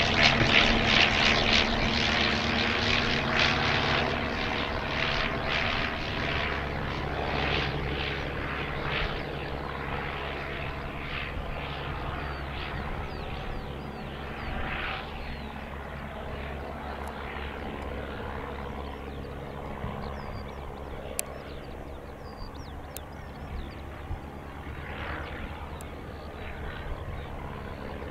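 Royal Aircraft Factory B.E.2c biplane's engine and propeller running steadily as it takes its run across the grass and lifts off, growing gradually quieter.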